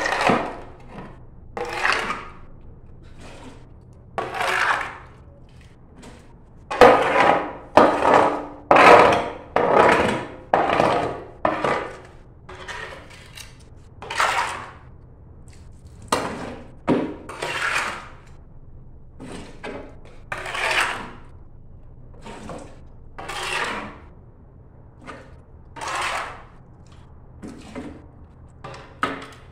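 Metal shovel scraped again and again across the tiled floor of an empty swimming pool, about one stroke every second or two. The strokes are loudest and come closest together a little after a quarter of the way in.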